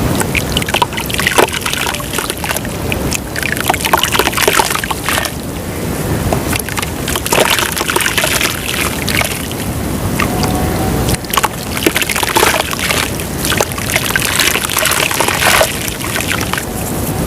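White dirt crumbling into water: continuous sloshing with many small crackles and plops.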